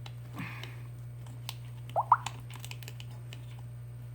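Small clicks and scrapes of hand tools working a screw and a clip inside a Samsung Galaxy S7, over a steady low electrical hum; about two seconds in, two short squeaks and a sharp click.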